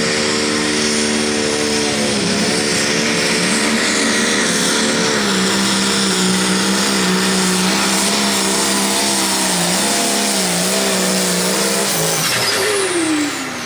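Turbocharged diesel engine of an International Limited Pro Stock pulling tractor running at full throttle under load while dragging the weight sled, its pitch steady and wavering slightly in the later part. Near the end the throttle is let off and the engine speed falls away.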